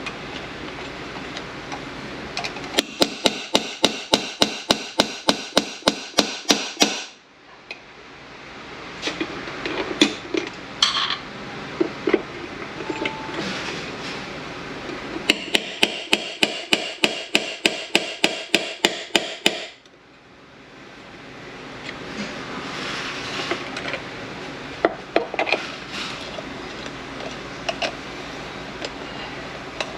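Slide hammer being worked on an 8L90 automatic transmission to pull a tight part out of the case: its weight slams against the stop in rapid runs of ringing metallic clanks, about three to four a second, twice, with a few single knocks between and near the end.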